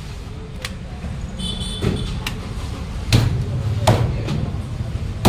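Heavy knife chopping through fish on a thick wooden chopping block: a few sharp chops from about two seconds in, roughly a second apart, the last at the very end. A steady low hum runs underneath.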